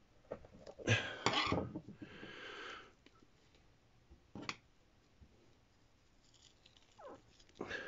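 Handling noises on a wooden desktop: a cluster of knocks and clatter about a second in, a short hiss just after, a single sharp click around four and a half seconds, and another knock near the end, as a screwdriver and a brass pipe fitting are picked up and used to tamp brass wool into the fitting.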